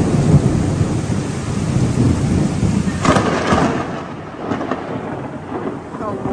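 Thunder rolling over heavy rain: a loud low rumble in the first few seconds, sharper cracks about three seconds in and again shortly after, then the rumble dies down while the rain hiss goes on.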